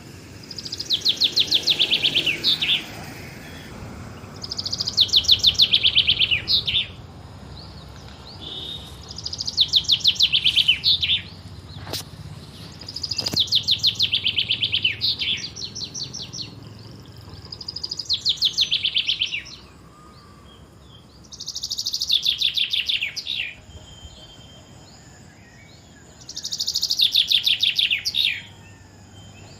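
A songbird singing the same song over and over: a fast trill of high notes that falls in pitch, about two seconds long, repeated seven times roughly every four seconds.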